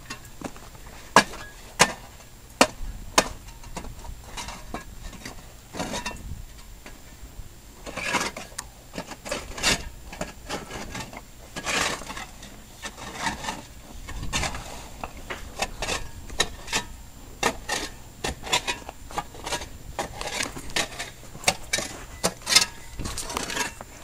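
Ice being chipped and scraped off a frozen heat pump with hand tools: irregular sharp knocks and cracks with scraping between them. The loudest strikes come in the first few seconds and again near the end.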